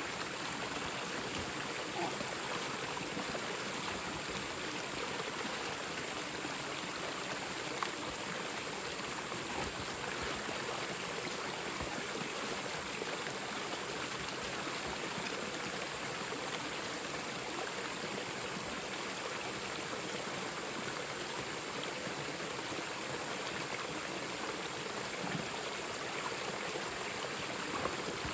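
Mountain stream running steadily over rocks, with a few faint knocks.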